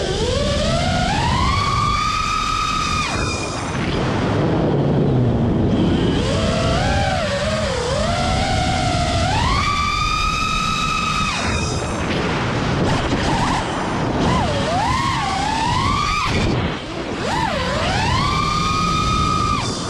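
FPV quadcopter's brushless motors and propellers whining, the pitch sweeping up and holding high as the throttle is punched, then dropping sharply when it is let off, several times over. Wind rushes over the onboard camera's microphone.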